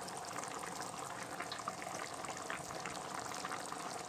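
Spiced water and rice for dum biryani boiling in a kadai, bubbling steadily.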